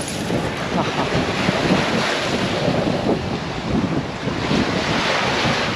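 Small waves breaking and washing up a beach of coral rubble, surging in swells, with wind buffeting the microphone.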